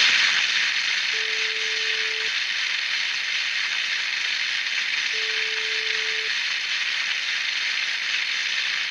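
Food sizzling on a hot grill: a steady, even sizzling hiss that fades away near the end.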